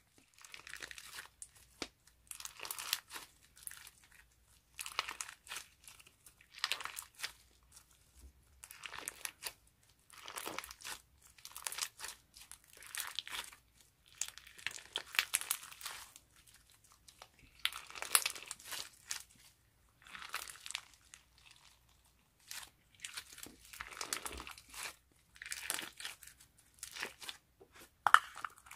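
Bead-filled clear crunchy slime being squeezed and pressed by hand, giving crunchy crackling and clicking in repeated bursts every second or two, with a sharper crack near the end.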